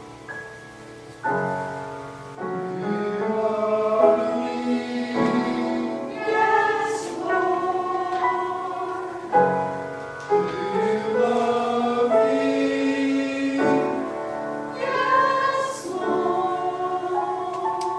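Choir singing a hymn in held, sustained notes, with words audible as occasional sibilant consonants.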